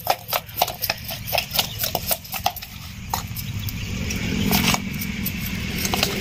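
Quick wet clicking and squishing of hands rubbing salt, chilli powder and turmeric into raw prawns and fish pieces in a bowl. It fades after about three seconds as a low, steady rumble builds and grows louder.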